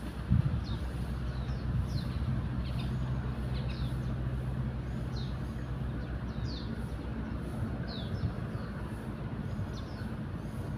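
Small birds giving short, falling chirps about once a second over a steady low mechanical hum, with one thump about half a second in.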